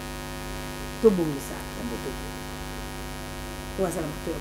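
Steady electrical mains hum, with a woman's short cry falling in pitch about a second in and her voice again near the end.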